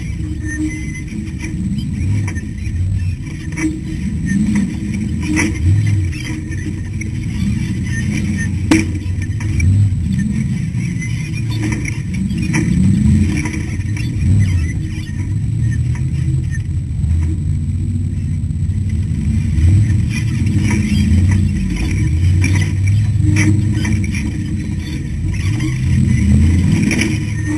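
Ultra4 rock race car's engine revving up and down as it works over rough rocky ground, heard from inside the car. Scattered sharp knocks run through it, the loudest about nine seconds in.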